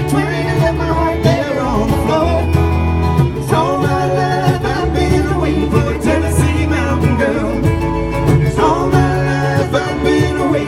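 A bluegrass string band playing a country song live, with plucked and strummed strings over a walking bass line that changes note about every second, and a bending melody line on top.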